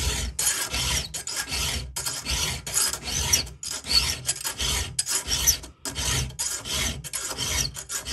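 Round chainsaw file rasping across the cutter of a Stihl saw chain in short, repeated push strokes, roughly two a second. The file is taking off damaged chrome and shaping a tooth that is not yet sharp.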